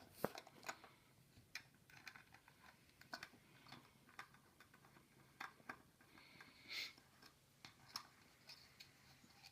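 Faint, irregular clicks and ticks of a small screwdriver turning small screws out of a plastic diffuser's disc retaining ring, with light handling of the plastic parts.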